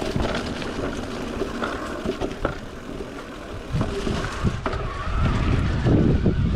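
Mountain bike riding over a dirt trail: tyre rumble and wind buffeting the microphone, with scattered sharp clicks and rattles from the bike over bumps. The low wind rumble grows louder about five seconds in.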